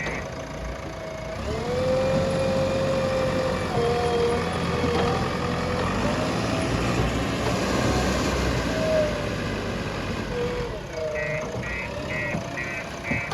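Diesel engine of a JCB 3DX backhoe loader running as the machine works, with a whining tone that shifts up and down in pitch. A reversing alarm beeps about twice a second from near the end.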